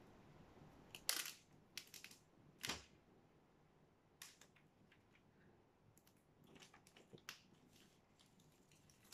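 Clear plastic wrapping being peeled and torn off an iPhone box: a few short, sharp crackles and rips, the loudest in the first three seconds, then fainter scattered ticks.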